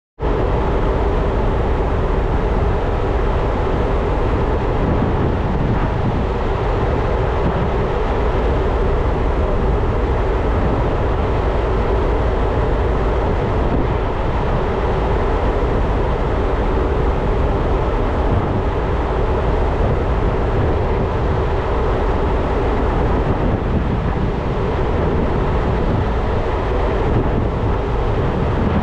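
Steady wind rush and low rumble on a ship's open deck at sea, with a constant hum from the ship running underneath.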